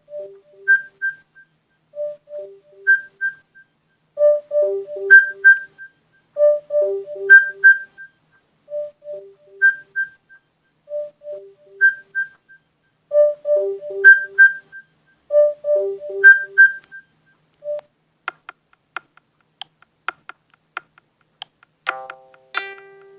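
Nexus 5X alarm tone playing: a short phrase of quick electronic notes that repeats about every two seconds and stops about three-quarters of the way through. Near the end a different alarm tone begins, with plucked-string notes.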